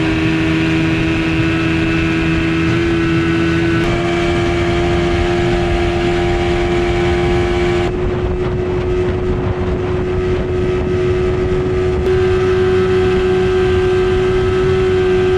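Outboard motor running under load pushing a boat, holding a steady pitch that steps up slightly a few times. The engine runs smoothly after a blockage in its carburettor fuel line was cleared.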